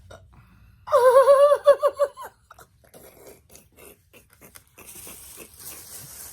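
A high-pitched, wavering laugh about a second in, lasting just over a second, followed by scattered soft clicks and a steady hiss from about five seconds in.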